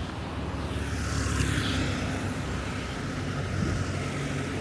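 A motor vehicle's engine running close by, a steady low hum with a hissing swell that peaks about a second in, like a vehicle going past.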